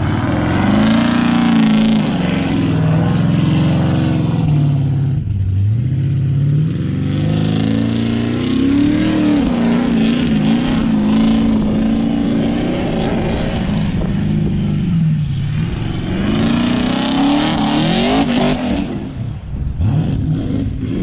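Twin-turbo 427 LSX V8 in a 4x4 Escalade revving hard as it slides around in snow. The engine note climbs and falls again and again, with deep drops about 5 and 15 seconds in and a sharp dip near the end before it picks up again.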